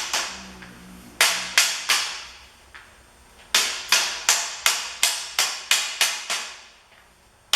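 Sharp taps on a steel ring made of 1/2-inch square bar, knocking its half-lap notch into place on the other rings. Each tap rings out briefly: three quick taps about a second in, then a steady run of about nine taps at roughly three a second.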